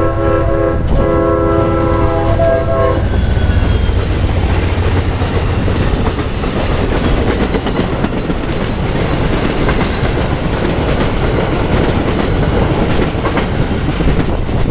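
Amtrak Silver Star passenger train sounding its multi-chime air horn, with a short break about a second in, before the horn cuts off about three seconds in. The train then passes close by with a loud rumble and the clickety-clack of its wheels on the rails.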